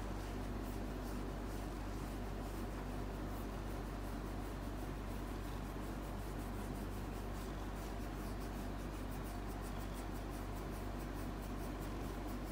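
Korat cat purring steadily while its chin is scratched, with a soft, rapid rasp of fingers rubbing through its fur.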